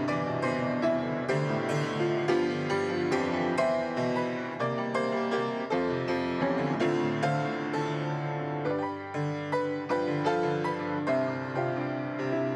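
Background music played on a keyboard instrument, a steady flow of struck notes each dying away.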